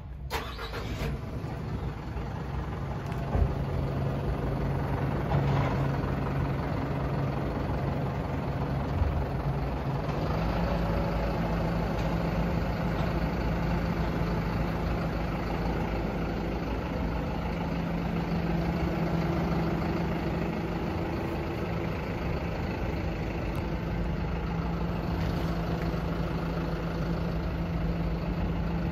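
Diesel truck engine idling steadily, its pitch stepping up slightly about ten seconds in.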